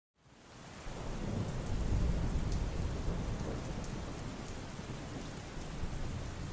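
Steady rain falling, with a low rumble of thunder underneath that swells about two seconds in. Scattered drops tick through the noise, and the sound fades in at the start.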